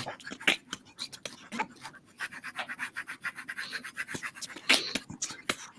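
Pens scratching and rubbing on paper in quick, rhythmic strokes while drawing and colouring.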